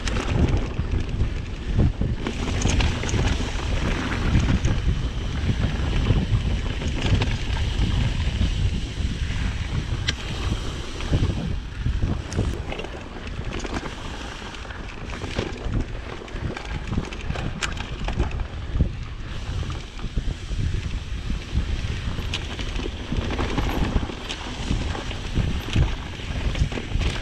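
Wind buffeting the microphone over the rumble and rattle of a mountain bike being ridden on a dirt trail, with scattered clicks and knocks from the bike.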